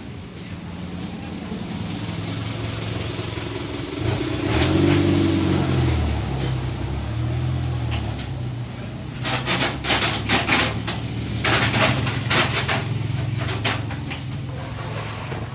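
A 110cc motorcycle engine running, its pitch rising about four seconds in, then a string of short, loud rasping bursts in the middle.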